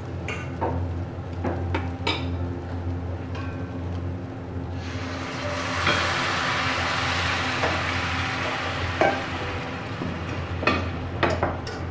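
Spatula clicking and scraping against a stainless steel pan of frying zha jiang sauce, then a sudden loud sizzle about five seconds in as half a glass of water hits the hot pan. The sizzle fades over a few seconds, and a few more sharp spatula clicks follow near the end.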